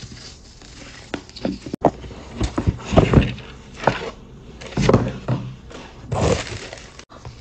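Tissue paper rustling and crinkling as it is handled and folded back inside a cardboard gift box, in several separate bursts with soft handling knocks from the box.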